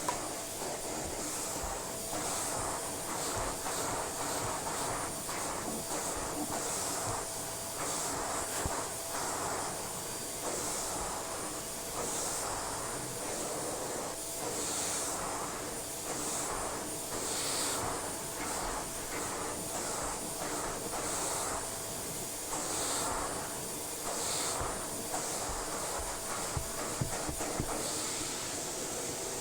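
Dyson upright vacuum cleaner running, a steady motor hum and airy hiss that swells and eases every couple of seconds.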